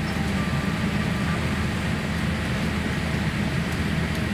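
Steady cabin noise inside a Boeing 787-8 airliner being pushed back from the gate: a low hum under a broad rush of air. A faint thin tone sounds for about a second near the start.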